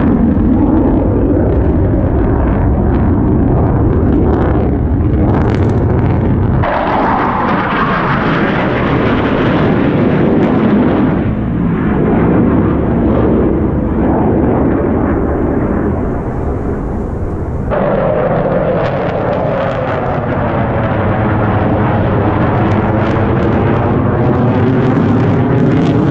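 Aircraft flying overhead at an air show: a loud, steady rushing engine noise with a slowly sweeping, phasing tone as the planes pass. The sound changes abruptly twice, about 7 and 18 seconds in.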